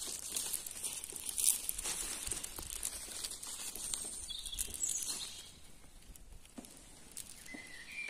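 Footsteps crunching and rustling through dry fallen leaves and twigs, about two steps a second, dying down after about five seconds. A bird chirps briefly in the middle and again near the end.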